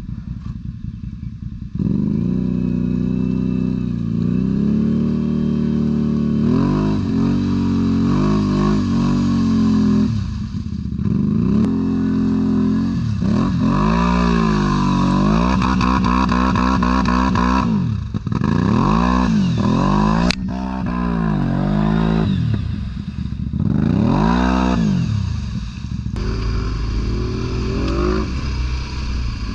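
ATV engine running loud and revved up and down over and over, its pitch climbing and dropping every second or two.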